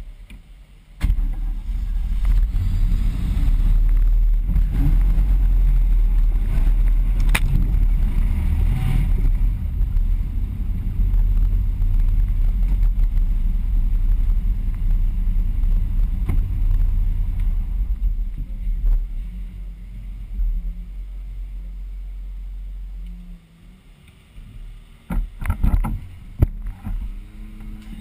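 Ford Bronco 4x4 driving off along a muddy trail: a heavy low rumble comes in suddenly about a second in and runs for some twenty seconds before dropping away. A few sharp knocks follow near the end.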